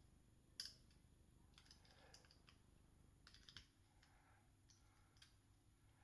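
Faint, scattered clicks and taps of plastic action-figure parts being handled and fitted together during a Transformers toy's transformation, with the sharpest click about half a second in and small clusters of clicks around two and three and a half seconds in.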